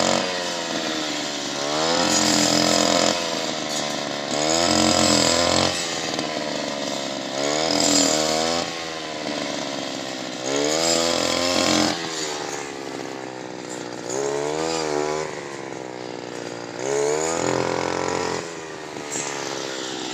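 Combine harvester engine running and revving in surges every two to three seconds, its pitch rising and falling and wavering with each surge.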